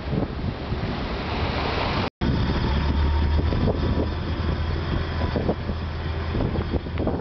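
Wind buffeting the microphone, then after a sudden cut, a Land Rover's engine drones steadily from inside the cab as it drives along a rough gravel track, with occasional knocks from the ground.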